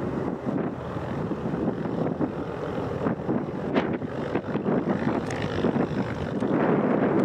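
Twin-engine jet airliner climbing away after take-off: a steady, noisy engine roar with no clear tone, with wind buffeting the microphone.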